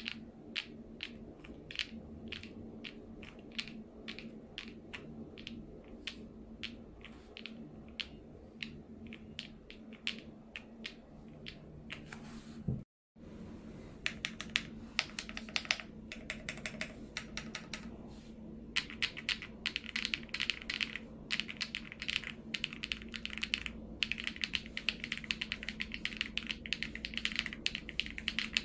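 Typing on a DREAM67 CNC-aluminium-cased 65% mechanical keyboard: separate keystrokes, about two a second, for the first dozen seconds, then after a brief break, faster, continuous typing.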